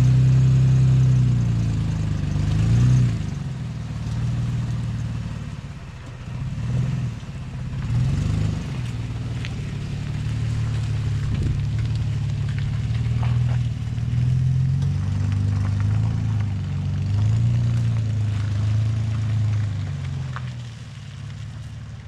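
Toyota Tacoma pickup's engine running and revving over slippery mud, its pitch rising and falling several times as the truck pulls away after being freed with traction boards. It fades toward the end.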